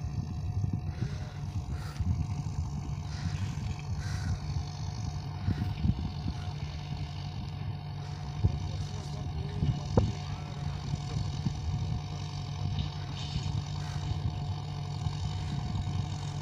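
Farm tractor engine running steadily as it pulls a boom sprayer across the field, a low even hum.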